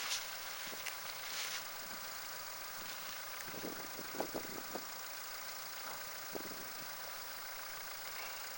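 Steady background hiss, with a short cluster of soft knocks about four seconds in and one more knock a couple of seconds later.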